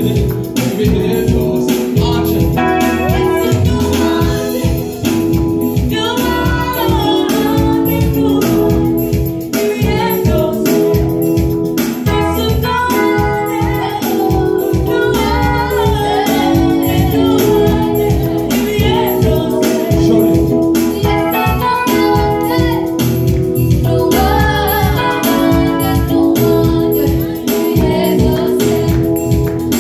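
Gospel praise singing by a group of singers on microphones, backed by a Yamaha electronic keyboard playing sustained chords over a steady beat.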